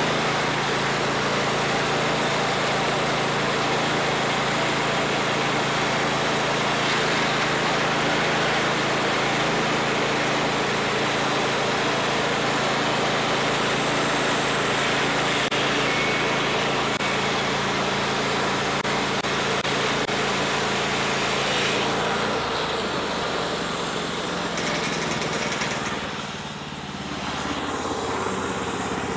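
Homemade band sawmill running and sawing through a log, its engine holding a steady note. About two thirds of the way in the engine note changes, and near the end the sound briefly drops.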